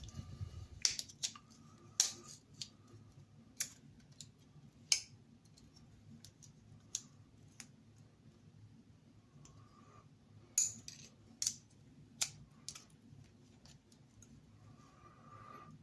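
Sharp metal clicks and taps from a folding multi-tool being handled, its parts knocking and snapping into place. About a dozen clicks come at irregular intervals, in two clusters with a lull in the middle.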